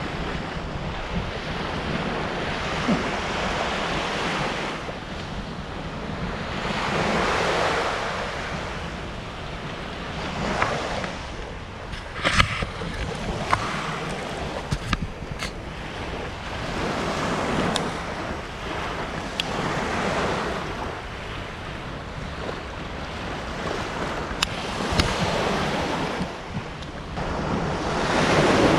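Ocean waves breaking on a beach, the surf swelling and falling back every few seconds, with wind buffeting the microphone. A few short clicks sound in the middle.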